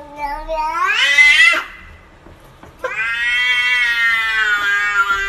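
Domestic cat giving two long, drawn-out meows that sound like a wailing "whyyy". The first rises in pitch and stops about a second and a half in; the second begins about three seconds in and is held steady.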